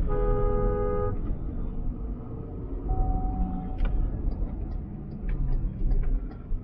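Inside the cabin of a moving MG Gloster SUV, its 2.0-litre twin-turbo engine running with a steady low road rumble. A vehicle horn honks for about a second at the start, and a shorter single-tone horn toot comes about three seconds in.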